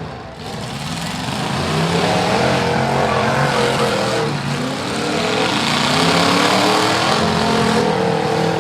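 Several demolition derby cars' engines revving and running hard at once, their pitch rising and falling as they are driven.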